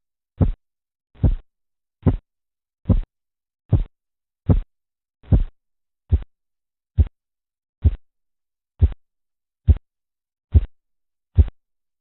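Korotkoff sounds heard through a stethoscope over an artery under a deflating blood-pressure cuff: a steady series of short low thuds with the pulse, about seventy a minute. The beats stop near the end.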